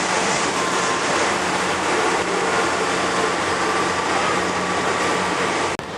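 Steady rushing wind noise on the microphone of a camera riding an open chairlift, with a brief dropout near the end.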